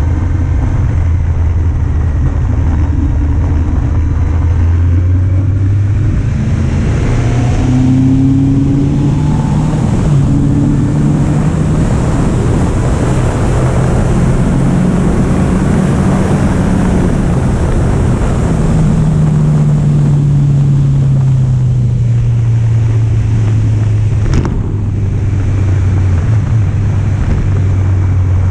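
Kawasaki Z750 inline-four engine heard from the bike while riding: the engine note climbs for a few seconds as it speeds up, with wind hiss growing. It then falls steadily for about five seconds as the bike slows, and a sharp click comes near the end before the engine settles to a steady note.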